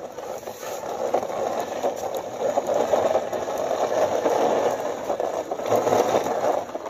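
Plastic toy police jeep pushed back and forth across a hard floor by hand, its wheels and works giving a steady gritty rattle and scrape that fades out near the end.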